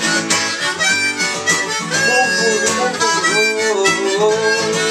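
Harmonica playing a melody of held, bending notes over strummed acoustic guitar.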